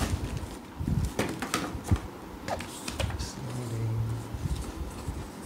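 Scattered light clicks and knocks at irregular times, with a brief low hum a little past the middle.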